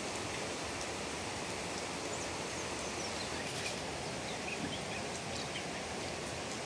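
Steady outdoor background hiss with a few faint, short high chirps scattered through it.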